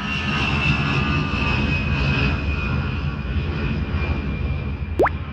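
Cartoon jet engine sound effect: a steady low rumble with a high whine that slowly falls in pitch as the jet descends to land. A quick rising whistle comes near the end.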